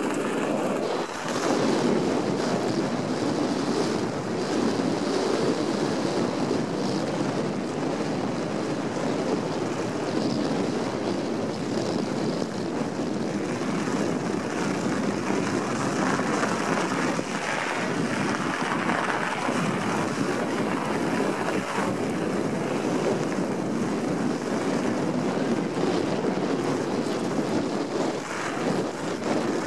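Steady wind buffeting the microphone of a mountain bike's camera during a fast descent, over the rolling rumble of knobby tyres on a packed-snow trail with scattered small knocks from bumps.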